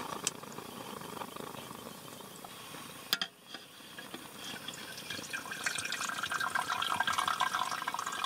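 Water pouring from a vacuum bottle into a camping kettle. The stream starts a few seconds in and gets louder as the kettle fills, after a brief click about three seconds in.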